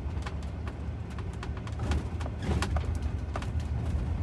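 Camper van driving on a gravel road, heard from inside the cabin: a steady low rumble of engine and tyres with frequent sharp ticks and crackles of gravel under the wheels.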